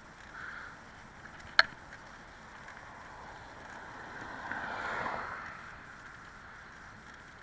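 A van passing on the adjacent road in the opposite direction: its engine and tyre noise swells to a peak about five seconds in and fades away, over the steady hiss of wind and the bicycle rolling. A single sharp click about a second and a half in.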